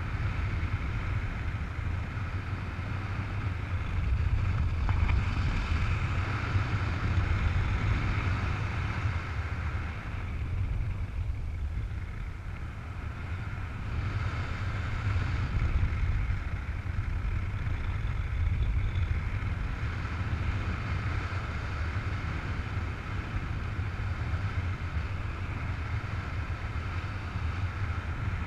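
Wind rushing over the microphone during a tandem paraglider flight: a steady low buffeting rumble with an airflow hiss that swells and eases every few seconds.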